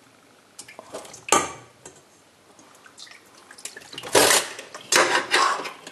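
Water splashing and a metal pot clinking as coiled liver sausage is lifted out of its hot cooking water and laid into a pot of cold water in a sink. There is one sharp, loud clatter about a second in and a run of louder splashes near the end.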